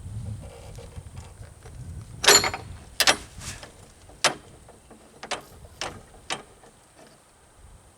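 Hand tools and steel parts of a loader's hydraulic tilt cylinder clinking and knocking during disassembly: a short scrape about two seconds in, then about six sharp metallic clinks spaced roughly half a second to a second apart.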